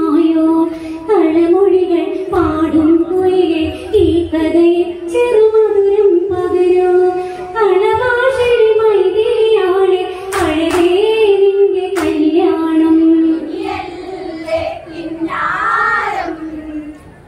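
Women singing a Malayalam Onamkali folk song together, the melody held continuously. A few sharp hand claps come about two-thirds of the way through.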